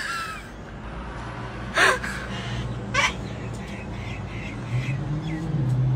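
Cockatoos screeching: two loud, harsh screeches about two and three seconds in, among fainter calls. Underneath runs a low steady hum that steps up in pitch and gets louder near the end.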